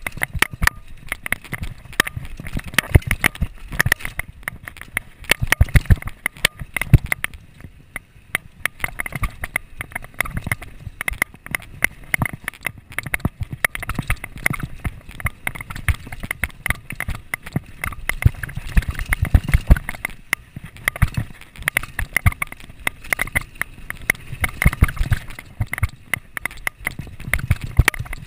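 Downhill mountain bike rattling and clattering as it is ridden fast over a dry, bumpy dirt trail: a dense, irregular run of knocks and clicks from the bike over the bumps, with patches of low rumble.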